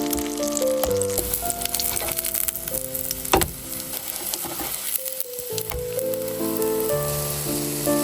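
Potato cakes sizzling as they fry in a pan, with a single sharp knock about three and a half seconds in, under background music.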